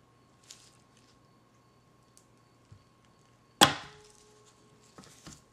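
Wire soap cutter brought down through a log of cold-process soap about three and a half seconds in: one sharp snap as the wire slices through and the wooden frame strikes the base, with the taut wire ringing briefly after. A few light knocks of the soap being handled before and after.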